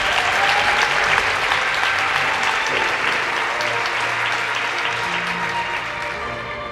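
Audience applauding over music. The clapping fades out near the end, leaving the music.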